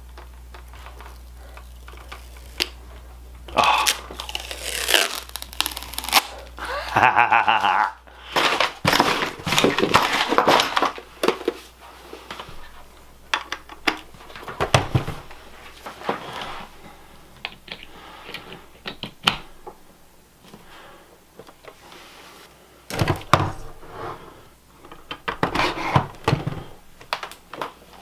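Irregular rustling, crinkling and tearing, like packaging being opened and handled, with scattered knocks as objects are set down.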